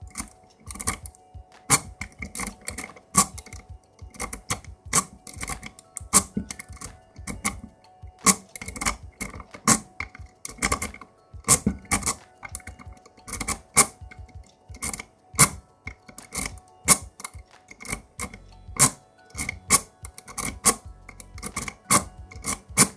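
Pick being zipped again and again through the pins of a Laird euro cylinder lock held in a vise: sharp metallic clicks and snaps, coming irregularly about once or twice a second, as repeated attempts fail to open it.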